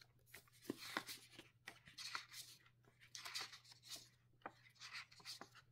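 Pages of a small paper booklet being flipped quickly by hand: a faint run of soft, irregular flicks and rustles, several a second.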